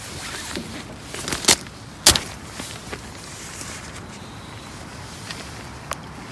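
Steady hiss of rain at a campsite, broken by a few sharp knocks or clatters: one about a second and a half in, the loudest just after two seconds, and a lighter one near the end.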